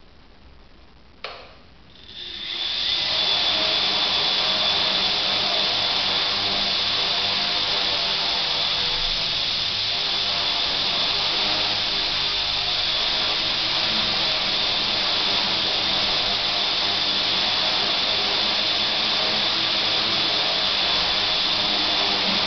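A click, then a quadrotor's four electric motors and propellers spin up about two seconds in and run steadily with a loud rushing noise and a high steady whine.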